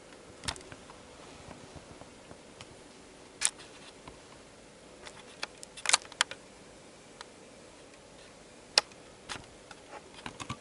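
Scattered sharp clicks and taps of handling, a few seconds apart, the loudest about six seconds in and just before nine seconds, with a quick cluster near the end. A faint steady tone runs underneath.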